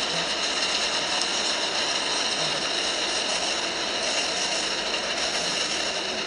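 R188 subway train on the 7 line moving along the platform, its cars going by close at hand with a steady, even running noise of wheels on rail.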